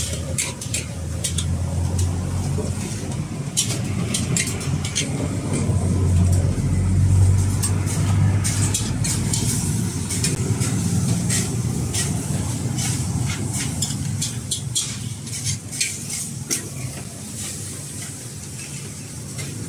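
Street-stall wok cooking: a steady low rumble from the gas wok burner, swelling a few seconds in, with frequent sharp clinks of metal ladles against the wok and bowls.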